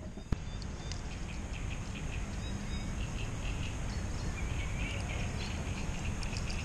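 Outdoor lakeside ambience: a steady low rumble of wind on the microphone with faint, scattered bird chirps. A single sharp click about a third of a second in.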